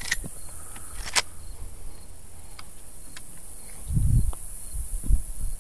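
Steady high-pitched buzzing of crickets in the grass, with two sharp clicks in the first second or so and two dull low thumps near the end.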